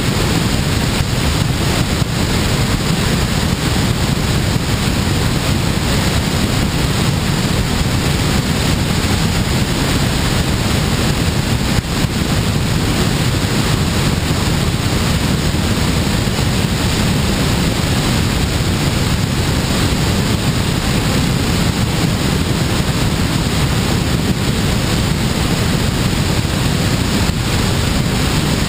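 Steady, loud rush of airflow buffeting a camera microphone mounted on the wing of a glider in flight.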